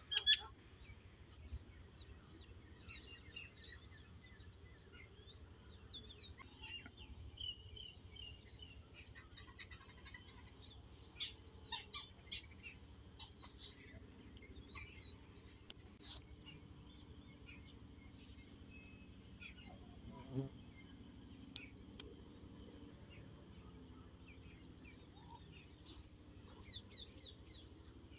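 Insects trilling in one steady, unbroken high-pitched drone, with a few short bird chirps scattered through it. A brief sharp click sounds right at the start.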